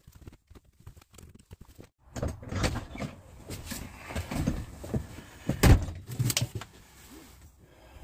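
Irregular knocks and clattering of things being handled, with a single loud thump a little past halfway.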